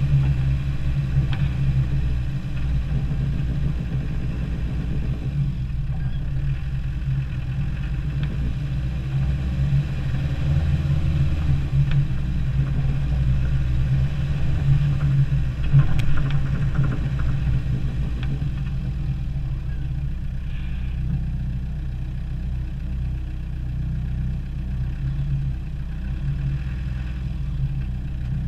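Land Rover Defender 90's engine running at low revs as it crawls through soft snow: a steady low rumble with a few light knocks.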